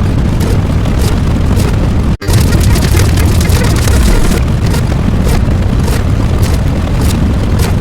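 Loud, distorted rumbling noise with crackling all through, cutting out for an instant about two seconds in.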